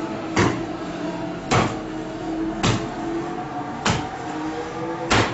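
Bun dough being kneaded by hand: a sharp thump about every second, five in all, as the dough is pushed with the heel of the palm and slapped against a hard work surface.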